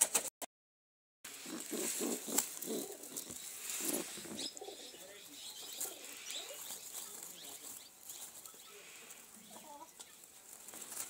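Domestic pigeon cooing in a run of low, pulsing coos for about three seconds after a brief dropout near the start, then quieter rustling in the straw nest.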